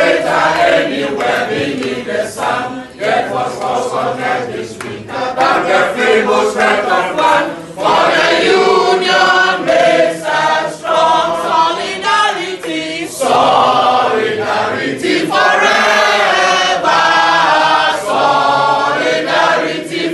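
A group of trade union members, men and women, singing a song together in unison in phrases with short breaks.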